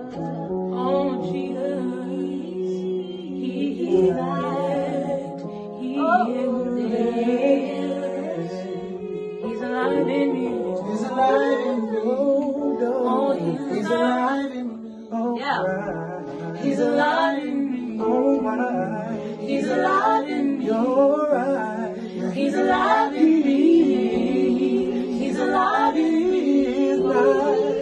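Gospel vocal group singing in close harmony, several voices holding chords while a lead voice sings bending runs over them.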